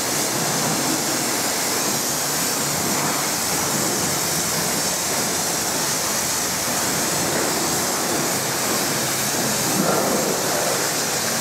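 Pressure washer jet spraying water onto a car's bodywork, a steady hiss of spray with no breaks.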